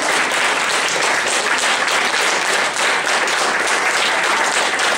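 A roomful of people applauding steadily: dense, continuous clapping with no breaks.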